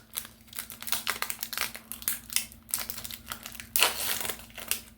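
Pokémon booster pack's foil wrapper crinkling and crackling in quick, irregular bursts as it is worked open by hand.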